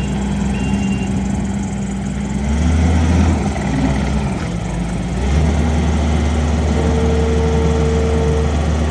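Kubota SVL75-2 compact track loader's diesel engine running. Its pitch shifts from about two and a half to five seconds in, then it settles and runs steady and a little louder.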